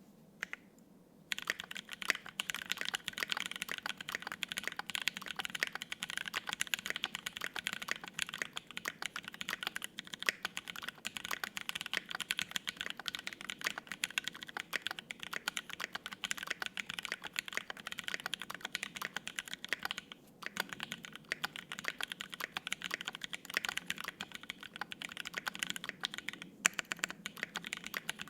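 Continuous fast typing on a Think6.5 V2 gasket-mount 65% mechanical keyboard, with lubed and filmed Penguin tactile switches on an FR-4 plate and GMK doubleshot ABS keycaps. It is a dense stream of key clacks that starts about a second in, with a short pause about two-thirds of the way through.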